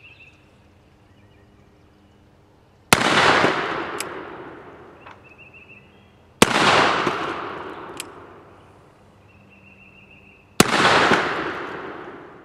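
Three shots from a black-powder .44 cap-and-ball revolver, a brass-framed Colt Navy replica, fired about three and a half to four seconds apart. Each report rings out and fades over about two seconds. A sharp click follows about a second after each of the first two shots.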